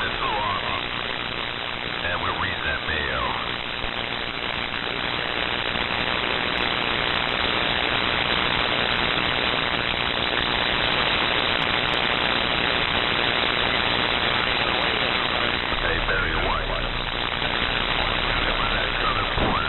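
Radio receiver audio from an SDR tuned to CB channel 6 (27.025 MHz, 11-metre band): a loud, steady hiss of static and band noise, with faint warbling whistles and garbled signals buried in it near the start and again near the end.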